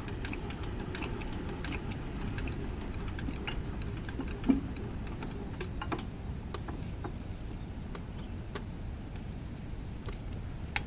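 Scattered light metal clicks and ticks from hands working on a two-wheel hand tractor's wheel and rotary linkage, with one sharper knock about four and a half seconds in, over a steady low rumble.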